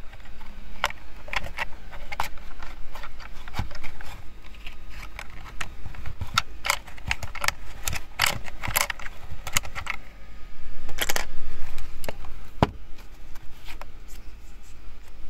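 Irregular plastic clicks, taps and scrapes from handling the opened housing and parts of a disassembled Bluetooth speaker, with a longer, louder scrape about eleven seconds in.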